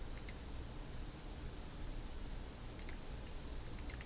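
Three pairs of short, sharp clicks from a computer mouse and keyboard: one pair just after the start, one near three seconds in and one near the end. They sit over faint steady room hum.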